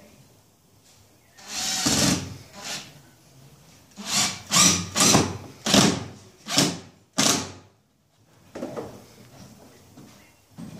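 Power drill driving a screw through the front reveal of a shower niche: one short run, then about seven quick pulses of the trigger as the screw is driven home.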